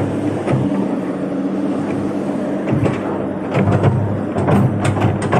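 Komatsu PC200 hydraulic excavator's diesel engine running steadily, with a run of sharp clanks in the second half.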